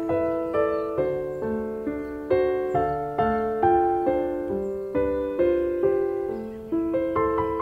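Background piano music: a slow, gentle melody of struck notes and chords, each fading before the next.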